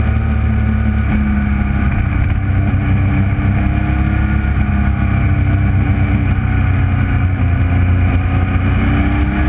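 Motorcycle engine running at road speed, its pitch rising and falling gently with the throttle through the bends, over heavy wind rumble on the onboard microphone.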